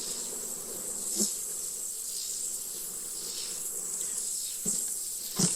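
Honeybees buzzing steadily around an opened hive, with a steady high hiss above the hum. A few soft knocks, likely from the hive's wooden frames or box being handled, fall about a second in and twice near the end.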